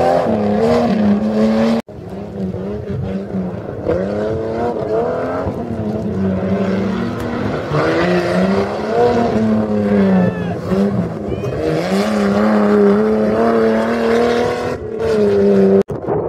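Jeep Cherokee XJ's engine revving hard under racing throttle, its pitch repeatedly rising and falling as the driver opens and lifts off, broken twice by sudden edit cuts.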